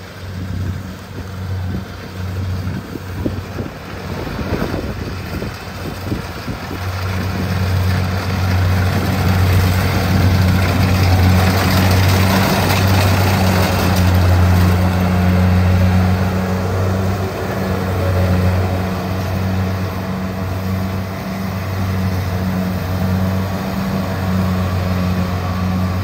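Kubota rice combine harvester running as it cuts rice, a steady low engine hum with a rushing mechanical noise over it. It grows louder as the machine comes close, is loudest about halfway through, and eases slightly as it moves away.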